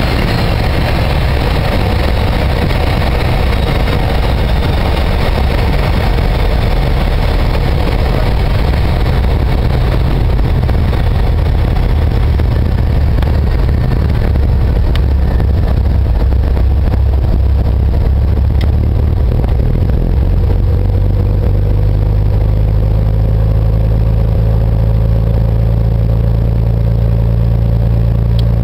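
Single-engined four-seater light aircraft's piston engine and propeller running, heard from inside the cabin during the landing rollout and taxi. The engine note settles into a steadier hum about two-thirds of the way through.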